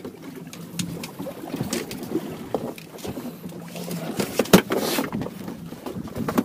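Knocks and clatter aboard a small fishing boat at sea, with one sharp knock about four and a half seconds in and a brief rush of noise after it.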